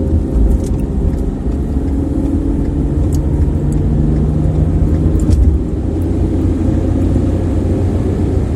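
Car engine and road noise heard inside the cabin while driving: a steady low rumble with an engine hum.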